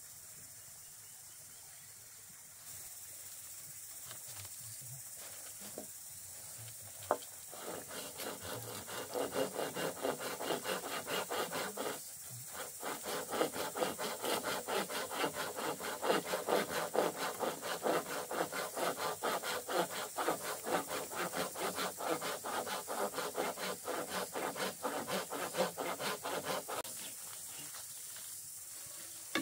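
A blade rasping on bamboo in fast, regular back-and-forth strokes, about three to four a second. The strokes start about eight seconds in, break off briefly near the middle and stop near the end; before them only a steady high hiss is heard.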